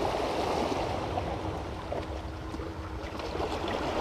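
Small sea waves washing and splashing against the rocks of a stone breakwater, with wind noise on the microphone. A faint steady hum sits under it for the first couple of seconds.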